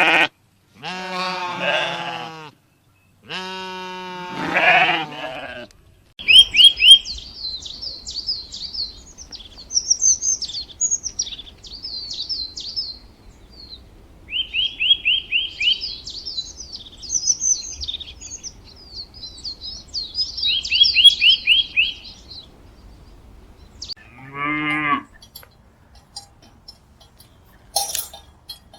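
A few long, wavering animal bleats, then about sixteen seconds of small birds chirping and twittering with quick trilled runs, and one more bleat near the end.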